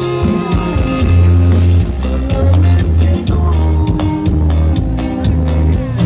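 Live band music with a heavy bass line and a steady drum beat.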